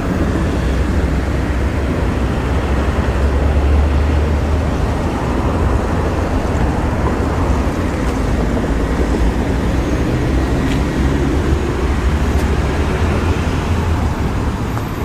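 Steady outdoor rumble of road traffic mixed with wind buffeting the microphone.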